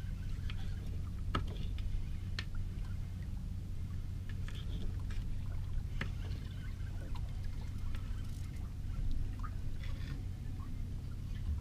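Water lapping and trickling against a small boat's hull over a steady low hum, with scattered light clicks.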